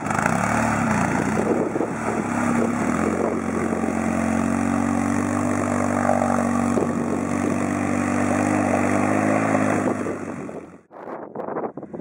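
Polaris RZR S side-by-side's engine running at a steady speed as it wades through a flooded dirt track, with water splashing and rushing around the wheels. The sound cuts off suddenly near the end.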